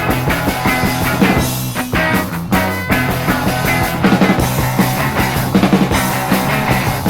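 Rock band playing an instrumental passage between sung verses: electric guitar, bass and drums with a steady beat.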